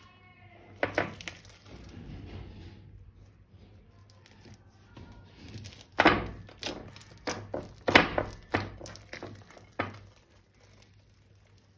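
A run of sharp clicks and knocks from objects being handled: a few about a second in, then a denser string of them from about six to ten seconds, over a faint low hum.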